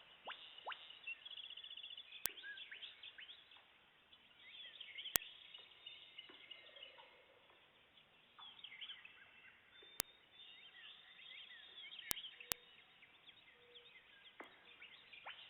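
Faint dawn chorus of many wild birds chirping, whistling and trilling, broken by a few sharp, isolated clicks.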